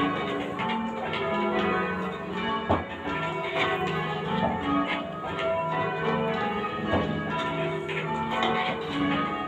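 Church tower bells rung full-circle in change ringing: the bells strike one after another in an even stream of changes, each ringing on under the next. A couple of sharp knocks are heard, the loudest about three seconds in.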